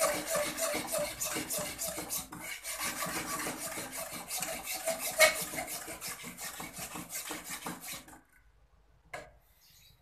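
Shinto saw rasp filing a clamped strip of horn in quick back-and-forth strokes; the rasping stops about eight seconds in, and a single sharp click follows about a second later.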